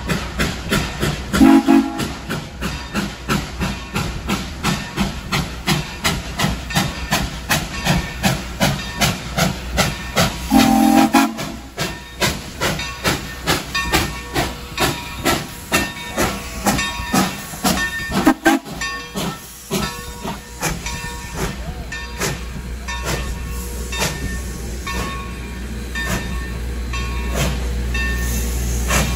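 Texas State Railroad steam train No. 30 running, with an even rhythmic beat of about two a second and steam hiss. Two short, low-pitched whistle blasts sound about a second and a half in and again about ten seconds in. After about twenty seconds the beat fades into a steadier rumble.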